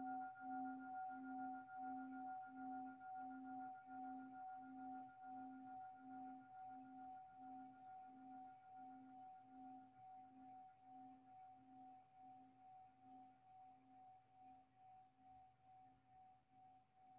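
A 17th-century Nepalese singing bowl, already struck, ringing faintly and slowly dying away, its low note pulsing a little under twice a second. The ringing is the cue to come back to the breath.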